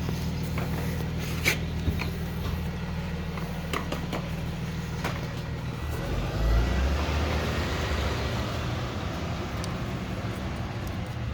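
A steady low engine hum runs throughout, like a vehicle running nearby. About six seconds in a louder rush swells up and fades away, like a vehicle going past. A few light clicks and taps come from the spline roller being worked into the screen frame.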